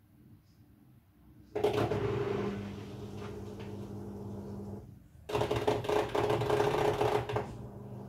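Midea front-loading washing machine's drain pump starting about one and a half seconds in: a steady motor hum with a loud rushing of water as it pumps out the rinse water. The rush breaks off briefly around five seconds and comes back, then falls away near the end while the pump hum keeps on.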